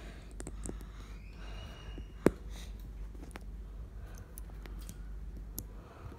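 Small plastic LEGO pieces clicking as they are handled and pressed together, a few light ticks and one sharp snap a little over two seconds in.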